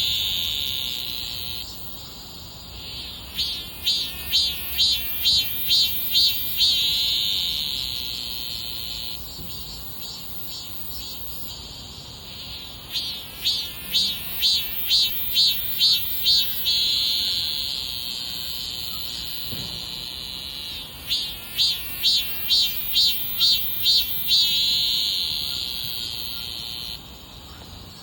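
Cicada singing: a run of loud pulses, about two a second, that runs into a long steady high buzz, then fades to a softer pulsing before starting again; the cycle comes three times.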